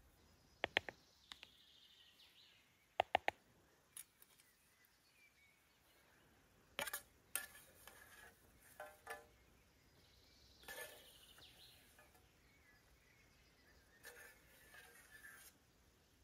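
Light metallic clinks and taps of camp cookware being handled, coming in small clusters of two or three a few seconds apart, with softer rustling and scraping between them.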